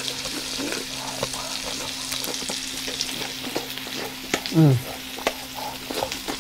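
Food sizzling steadily on a round grill pan over a portable gas stove, with small crackles. About four and a half seconds in, a brief falling vocal sound from the man eating.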